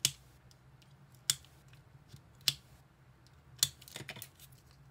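Four sharp snips or clicks about a second apart while stapled paper-and-plastic photo packaging is being opened, with a couple of fainter clicks after the fourth.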